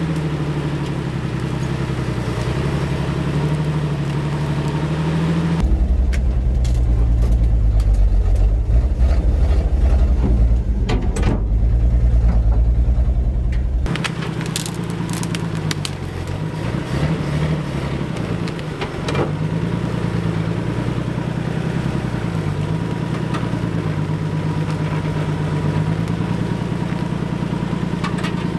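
Old 4x4 truck engine running under load off-road, its pitch stepping up and down as the revs change. For several seconds in the middle it gives way abruptly to a heavy, deep rumble with scattered knocks and rattles, then the engine note returns.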